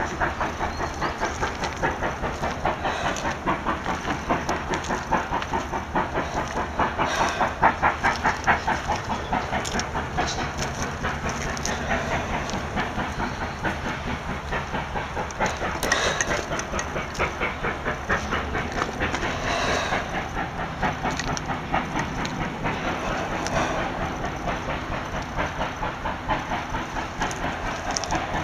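Steam locomotive 3801 working, its exhaust beating in a fast, steady rhythm over a hiss of steam.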